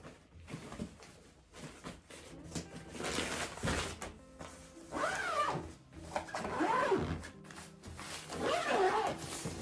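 Zipper on an IKEA fabric storage box being pulled shut around the lid: a fabric rustle, then three separate zipping rasps, each rising and falling in pitch. Soft background music runs underneath.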